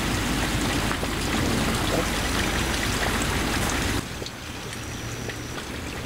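Steady hiss of water noise, like rain or running water. It drops abruptly to a quieter background about four seconds in, where a faint thin high tone comes and goes.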